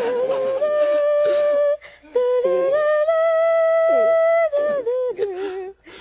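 A high voice humming a slow, wordless melody in long held notes, with a short break about two seconds in and a few shorter notes near the end.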